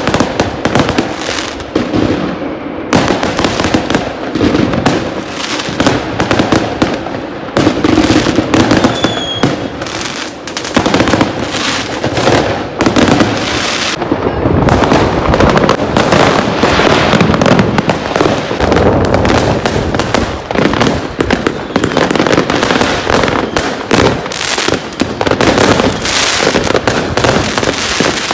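Fireworks and firecrackers going off continuously, many sharp bangs and crackles overlapping with no pause, with a short whistle about nine seconds in.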